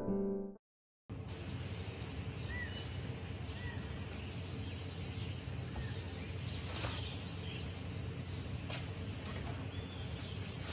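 A piano tune stops, and after a brief silence comes steady outdoor background noise with birds chirping now and then, plus a few faint clicks.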